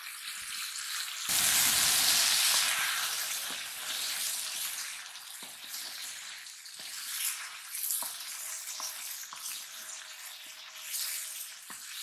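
Cut okra tipped into a kadai of hot oil and tomato-spice masala, setting off a sudden loud burst of sizzling about a second in. The sizzling then settles to a steadier level while a wooden spatula stirs, with occasional light knocks against the pan.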